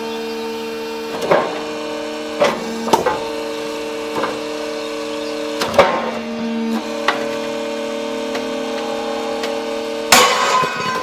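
Hydraulic rail-breaking machine running with a steady hum, broken by half a dozen sharp metal cracks and clanks as steel rail is broken; the loudest comes near the end, with a short ring after it.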